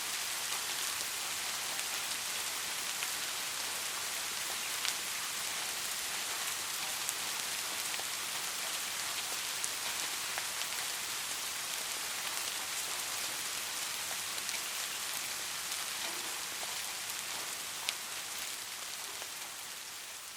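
Steady soft rain: an even hiss of falling rain with occasional single louder drop taps, beginning to fade out near the end.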